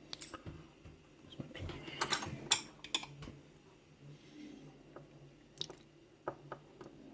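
Light clicks and taps of small metal lock parts being handled as a six-pin lock cylinder is taken apart and its pins removed. A cluster of sharper clicks comes about two to three seconds in, with a few more near the end.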